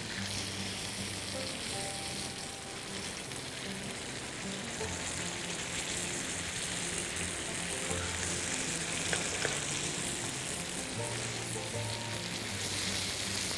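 Veal loin chops sizzling steadily in hot oil as they sear in a steel saj pan made from a harrow disc: the meat is being browned over a strong flame to seal in its juices.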